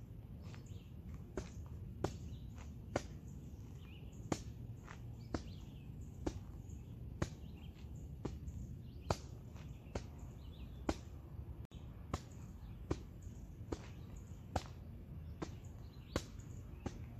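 Sharp snaps about once a second, with faint bird chirps over a low steady rumble.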